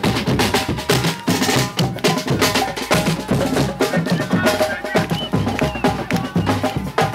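Music with a busy drum and percussion beat over held melodic notes.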